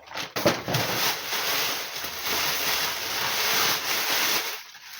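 Plastic packaging crinkling and rustling while being handled, with a few sharp crackles near the start, dying away shortly before the end.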